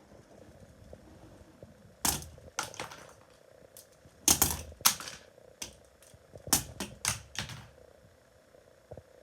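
Ceiling fan being struck: a dozen or so sharp clattering knocks in uneven clusters, starting about two seconds in and stopping near the end, over a faint steady hum.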